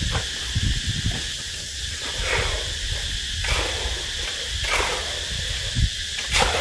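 Steady high drone of insects, with a soft swishing scrape about every second and a half and a low rumble of wind on the microphone.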